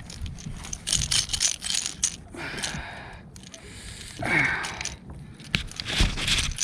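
Irregular clicks, knocks and rustling of hands working a lure's treble hooks out of a tangled seagull, with a few brief breathy or pitched sounds.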